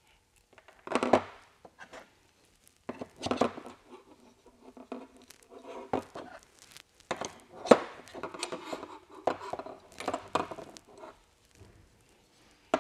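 Aluminum 15mm rods and clamps being handled and fitted together on a tabletop: irregular knocks, clicks and scrapes as rods slide into the clamps and are set down, the sharpest knocks about a second in and near the middle.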